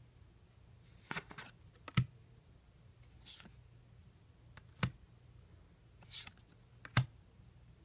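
Trading cards being handled and flipped through by hand: soft sliding swishes of card against card, with three sharp clicks a couple of seconds apart.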